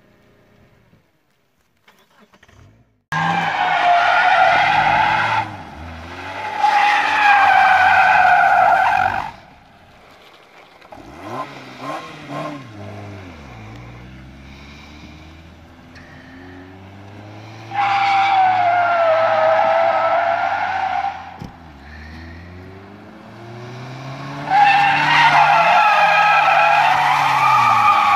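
A car doing donuts: its tyres squeal in four long, wavering bursts while the engine revs up and down beneath them, dropping back to a quieter rev between bursts. It begins after about three seconds of near silence.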